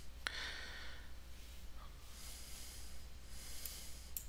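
Two soft breaths near the microphone over a steady low electrical hum, with a sharp mouse click shortly after the start and another near the end.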